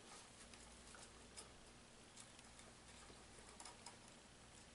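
Near silence, with a few faint, irregular small clicks and rustles from the crossbow pistol's limbs, string and paracord loops being handled while it is strung.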